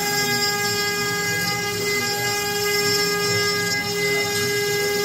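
CNC router spindle whining at a steady pitch with several overtones as it mills an aluminium composite panel, with the machine's cutting noise underneath.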